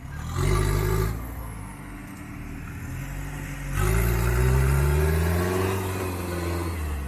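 Pickup engine revving under heavy load while a mud-bogged pickup is dragged out on a tow strap. There is a short hard rev about half a second in, then a longer rev from about four seconds whose pitch climbs and then slowly eases.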